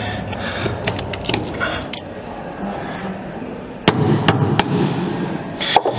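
Hand hammer striking the steel hub of a tank's return roller: handling and scraping noise, then four sharp metal strikes in the second half, three of them in quick succession.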